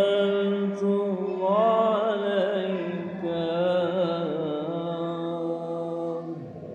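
A man's voice chanting one long, ornamented line of Islamic devotional chant, with pitch turns in the middle; it ends shortly before the close.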